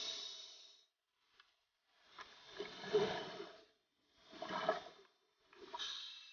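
Scuba diver's regulator exhaling bubbles underwater, heard as four short bursts of bubbling hiss with silent gaps between them.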